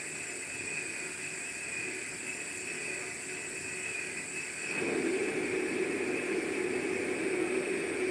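A polishing machine working an aluminum kettle body: a steady machine noise with hiss and thin high tones, played back through a display's speakers in a room. About five seconds in, a louder, lower hum joins in.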